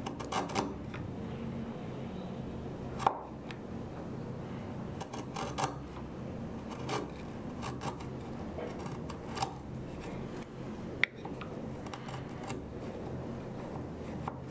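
Short, crisp cutting strokes of a sharp steel blade paring thin shavings from a small wooden kumiko piece held against a jig, about eight strokes at uneven intervals over a low steady room hum; the sharpest come about three seconds in and near eleven seconds.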